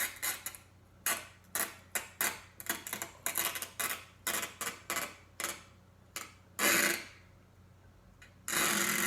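Sticky tape being pulled off a roll: a quick series of short pulls, then two longer, steadier pulls near the end.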